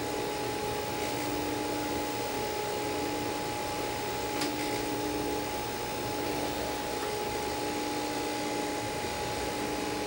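Steady whirring hum and hiss of a Sony CV2000 reel-to-reel video tape recorder running in playback. It carries a constant high whine and a lower tone that drops out and comes back about once a second. One faint tick comes near the middle.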